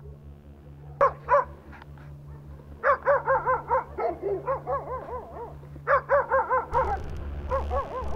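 A pack of feral stray dogs barking at a person they have surrounded. A couple of barks come about a second in, then two runs of quick, overlapping barks at several a second, in different pitches.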